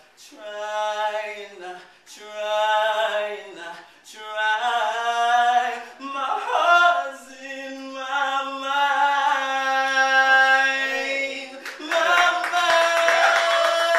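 Singing without accompaniment, in short phrases with breaths between them, then a long held note, and a fuller, louder passage near the end.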